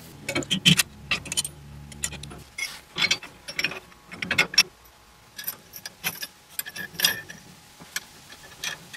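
Irregular metal clinks and taps as a steel leaf helper spring, its U-bolt, plate, lock washers and nuts are handled and fitted by hand under a pickup's rear leaf spring.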